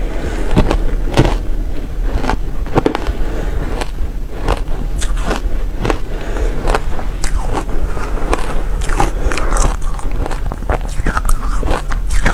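Shaved ice being bitten and chewed, a close, dense run of crisp, powdery crunches and clicks at an uneven pace. The playback is sped up by a quarter, and a steady low hum sits underneath.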